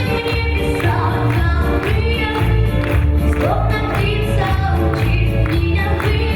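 Romani ensemble's song performance: music with a steady pulsing bass beat and singing over it.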